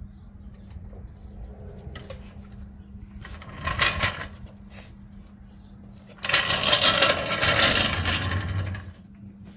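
Steel hydraulic floor jack being worked under a pickup on concrete: a short metallic clatter about four seconds in, then about three seconds of loud rattling and rumbling as the jack is rolled out from under the truck, now resting on its jack stands.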